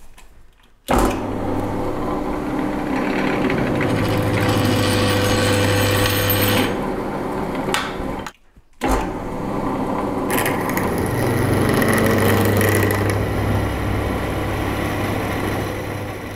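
Pillar drill running, its 17/64-inch bit cutting into a steel bar clamped in a machine vise. A steady motor hum under rough cutting noise starts about a second in, breaks off for half a second around eight seconds in, then goes on again.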